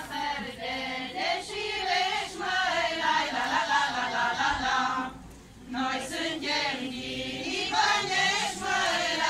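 A group of women singing a Romanian folk song together, with a short break between phrases about five seconds in.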